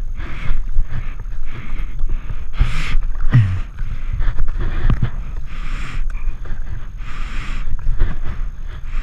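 Double-bladed kayak paddle strokes: the blades dip and splash into the water in a steady rhythm, roughly one to two splashes a second, over a low steady rumble. A sharper knock with a low thud comes about three seconds in.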